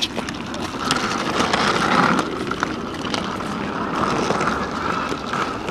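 Small hard wheels of a rolling backpack rumbling steadily over a concrete sidewalk, with a few clicks as they cross the joints.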